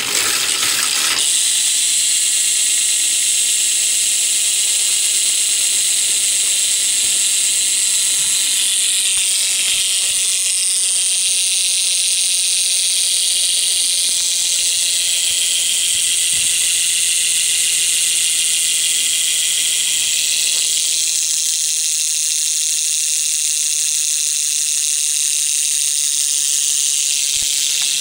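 Stock rear cassette hub of a 2010 Fit STR1 BMX freewheeling, its pawls ratcheting so fast they make a steady high buzz. The hub has been tweaked to run louder and is pretty loud.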